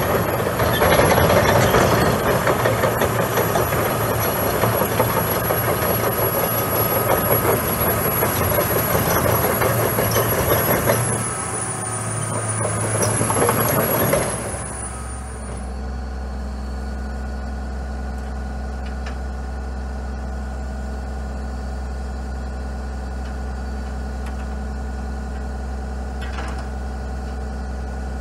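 Laurini Muletrax 2500 crawler carrier's diesel engine running loudly as the machine drives on its tracks, then about halfway through it stops and the engine settles to a steady idle.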